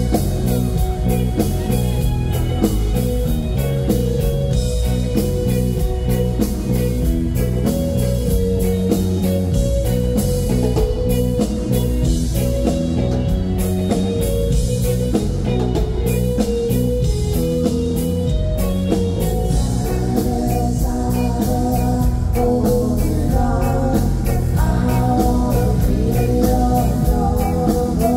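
A rock band playing live on electric guitars, bass, keyboards and drums, with a steady beat. A woman's lead vocal comes in about two-thirds of the way through.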